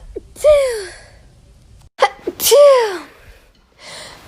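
Two loud human sneezes about two seconds apart. Each is a quick catching breath followed by a voiced "choo" that falls in pitch.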